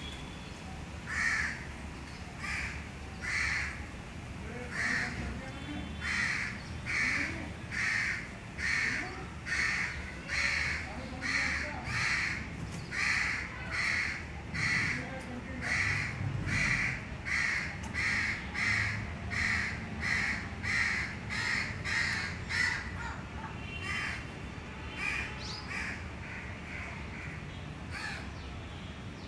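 A crow cawing over and over in a steady run of harsh calls, about one or two a second, becoming fainter and more scattered near the end.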